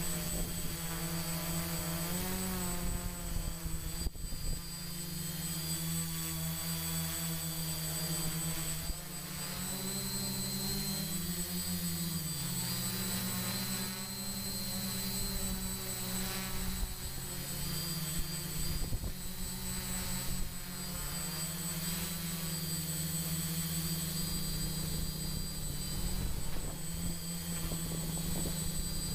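Drone's electric motors and propellers running in flight: a steady hum whose pitch shifts with the throttle, with several tones sliding apart and back together about ten to thirteen seconds in.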